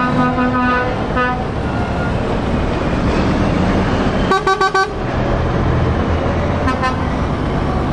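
Heavy trucks' diesel engines running as they pull away, with truck horns tooting. There are a few short toots at the start, then a burst of four quick horn blasts about four seconds in, which is the loudest sound here, and a brief toot near the end.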